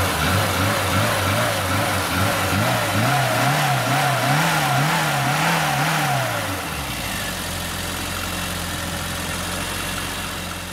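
Car engine revved in quick repeated blips, its pitch rising and falling about twice a second, then settling into a steady idle about six and a half seconds in and beginning to fade near the end.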